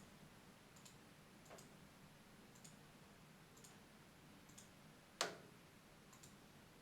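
Near silence with faint ticks about once a second and one sharp click about five seconds in.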